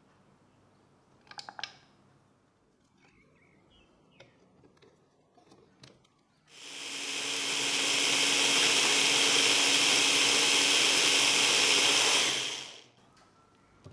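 Electric mini chopper running for about six seconds, blending tomatoes, coriander, green chilli, garlic and cashews into a paste. It winds up over about a second, runs steadily, then cuts off near the end. A brief clatter comes earlier, as the cashews go into the bowl.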